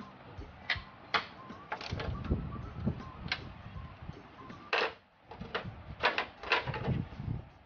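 Irregular sharp metallic clinks and knocks of a socket and extension bar being worked and handled at a car's front strut-top mount, with a few duller thumps.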